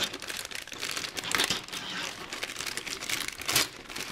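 Clear plastic polybag of model-kit parts crinkling as it is handled and worked at to open it. Irregular rustles, loudest about a third of the way in and again near the end.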